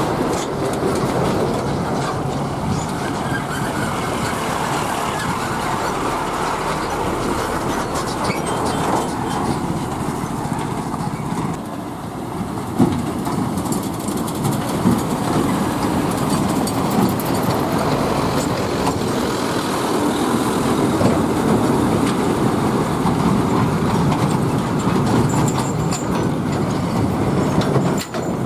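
Heavy trucks running along a road: a steady rumble of engines and tyres, with a brief knock about thirteen seconds in.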